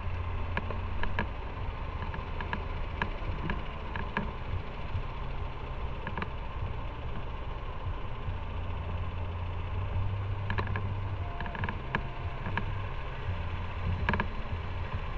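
Motorcycle engine running, heard from on the bike: a low steady hum under road hiss, with scattered light clicks and taps.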